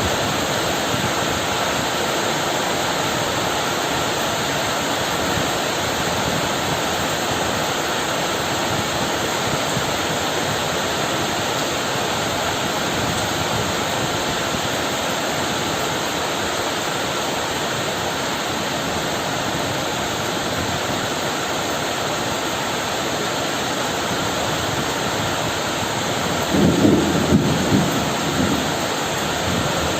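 Steady, heavy rain falling without a break, with a short, rumbling roll of thunder lasting about two seconds near the end.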